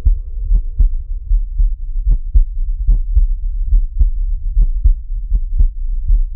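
Deep bass pulses in a heartbeat pattern on the soundtrack: pairs of beats about a quarter second apart, repeating roughly every 0.8 s. A held tone left over from the music fades out about a second and a half in.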